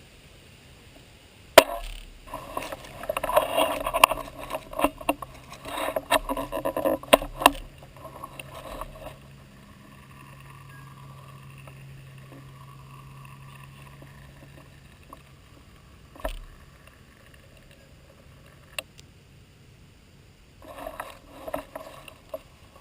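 Close rustling and clicking handling noise in two spells, a long one starting with a sharp click and a short one near the end, with a faint steady hum in between.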